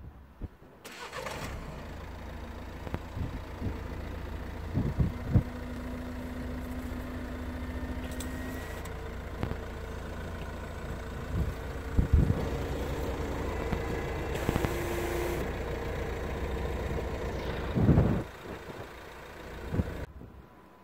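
Renault Scénic IV's 1.6 dCi diesel engine idling while the headlamp washers fire, spraying fluid onto the headlamp, with steady tones from the washer system and a few sharp knocks.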